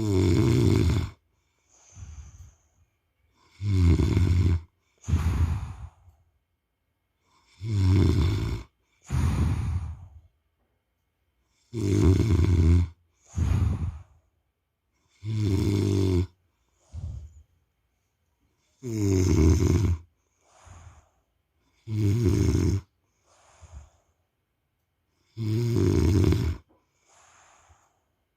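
A man snoring in a regular rhythm: a loud, rattling snore about every three and a half to four seconds, each followed by a shorter, softer one, about eight cycles in all.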